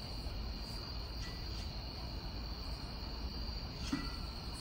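Night insects, crickets, chirring in a steady high-pitched chorus over a low steady rumble of background noise. A short sharp sound comes about four seconds in.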